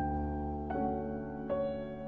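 Slow, soft background music, with a new piano chord struck about three times in two seconds.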